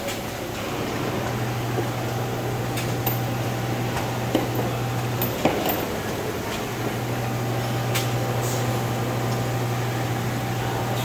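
Automated assembly machine with a vibratory bowl feeder and pneumatic actuators running: a steady low hum drops out briefly near the start and again about halfway through. A noise haze runs under it, with a few sharp clicks and short air hisses.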